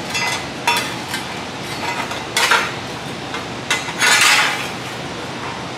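Bent sheet-metal panel clanking and rattling as it is handled and set into the car's floor for a test fit: several sharp metallic clanks, with a longer, louder rattle about four seconds in.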